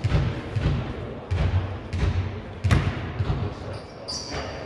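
A basketball being dribbled on a hardwood gym floor: a quick, even run of bounces that stops about three and a half seconds in. Sneakers squeak briefly on the floor near the end.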